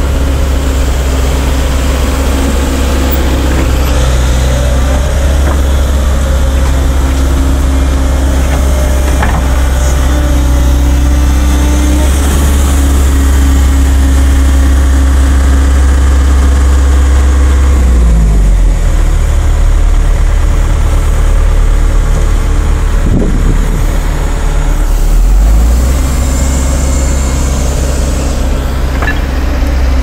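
Diesel engine of a Volvo EC140BLC crawler excavator running steadily, heard close to the machine. About 18 seconds in the engine note drops lower, and it comes back up about 7 seconds later.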